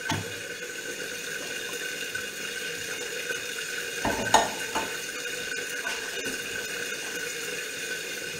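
Steady hiss with a faint hum, broken by a few light knocks, the loudest about four seconds in.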